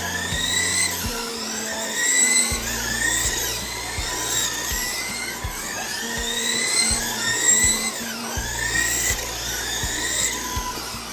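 Several electric RC race cars' motors whining as they lap the track, the pitch repeatedly rising and falling as they accelerate down the straights and brake into corners. Background music with a low beat plays underneath.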